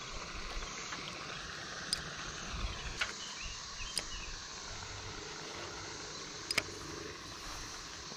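Steady outdoor insect hiss, with a few sharp clicks scattered through it.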